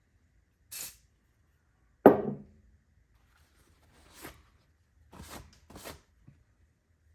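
Four short hissing sprays of CA glue accelerator from a spray bottle, with one loud wooden knock about two seconds in, the loudest sound.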